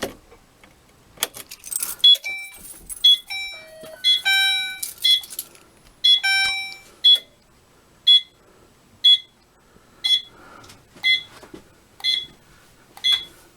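A few clicks as a fire alarm key station is activated, then the fire alarm system goes into alarm. Its notification appliances give a loud, sharp electronic beep about once a second, with a jumble of other short tones at different pitches during the first few seconds.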